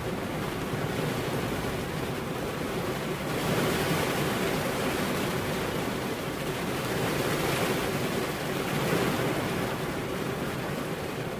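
Steady rain falling, an even hiss that swells a little louder and brighter about three seconds in.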